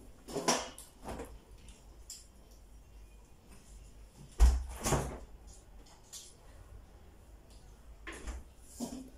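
A door being opened and shut, with a few light knocks and one heavier thump about four and a half seconds in.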